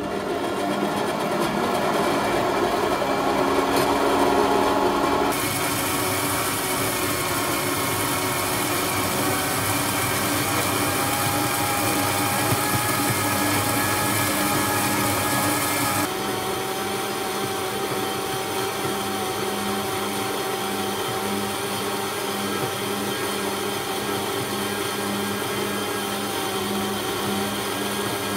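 Warco 5-inch portable metal-cutting bandsaw running at its lowest speed, its blade sawing through a 40 mm mild steel bar: a steady motor hum under the rasp of the blade in the cut. The tone shifts abruptly about five and sixteen seconds in, and a faint even pulse runs through the hum in the second half.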